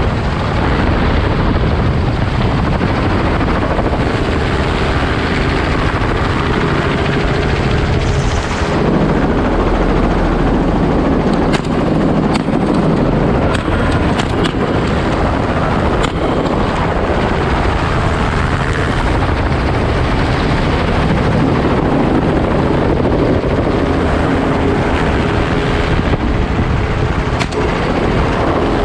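A light helicopter running loud and steady in low flight, with wind rushing past the open door. A few sharp cracks, shots from the shotgun, come about midway and once more near the end.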